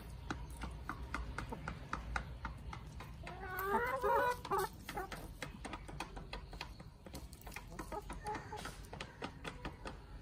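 Chickens clucking: a bright run of short clucks about three and a half seconds in and fainter calls near the end, over a scatter of small taps as the hens peck at the ground.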